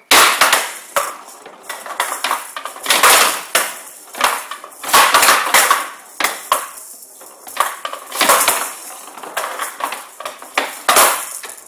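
A showdown rally: the rattling showdown ball clattering along the wooden table and being struck back and forth by the bats, with repeated sharp, rattly hits against the bats and the table's side walls.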